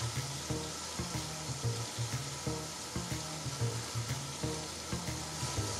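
Tap water running steadily and splashing over leafy greens being rinsed and turned by hand in a stainless steel sink. Background music with a repeating bass line plays under it.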